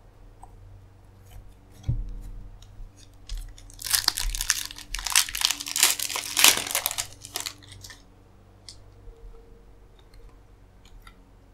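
Foil wrapper of a baseball card pack being torn open and crinkled for about three and a half seconds, after a soft thump about two seconds in.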